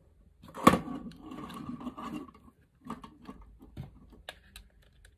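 Handling sounds at a workbench: a sharp knock about a second in, then rustling and light scattered clicks as cables, a plastic switch plate and a screwdriver are handled.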